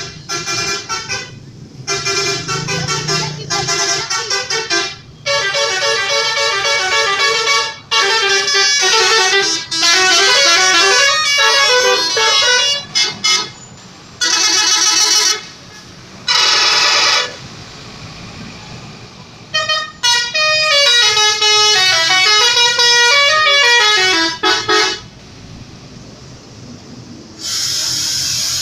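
Telolet horns of two Indonesian buses sounding in turns, multi-tone horns playing quick stepped melodies in loud bursts with short gaps between them. A loud rush of noise comes near the end.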